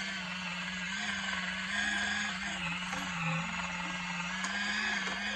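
Portable mini washing machine running under water: a steady motor hum that wavers slightly in pitch, with the swishing churn of its rotor agitating soapy water and cloths.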